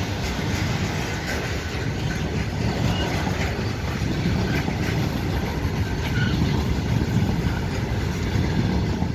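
Covered freight wagons of a long goods train rolling past at speed: a steady rumble of wheels on rail with rattle and clatter from the wagons, and a few brief faint squeaks.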